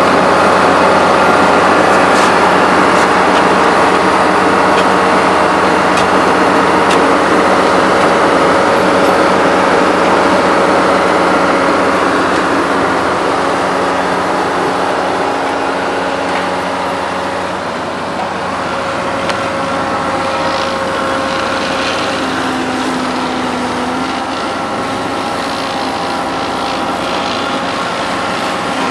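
Heavy diesel engines of road-paving machinery, the dump trucks and asphalt paver, running steadily, a little quieter about halfway through.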